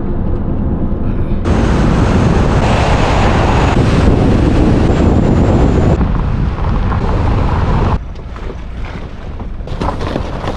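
Wind buffeting the microphone of a camera mounted outside a moving vehicle, over a heavy rumble of tyres on a dirt road. About eight seconds in it drops quieter, and the tyres crunch and crackle over a rocky gravel track.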